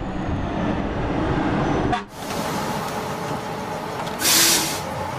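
Bus sound effect: the engine running as the bus drives, dropping out briefly about two seconds in, then a short, loud air-brake hiss a little after four seconds.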